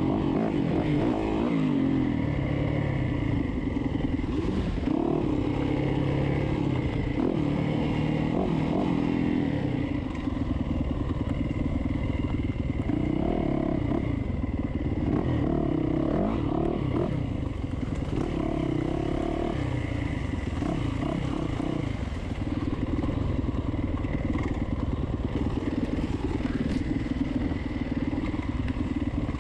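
Dirt bike engine running hard, its pitch rising and falling over and over as the throttle is worked through the gears, with clatter from the bike over rough trail.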